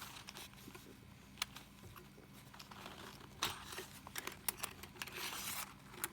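Faint handling noise from unpacking small items: light crinkling of packaging with scattered sharp clicks and taps, and a short rustle about five seconds in, over a faint steady hum.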